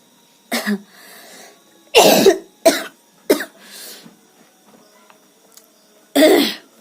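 A woman coughing a dry cough in short, sharp bouts: one about half a second in, a cluster of three or four between two and three and a half seconds, and one more near the end, with faint breaths between.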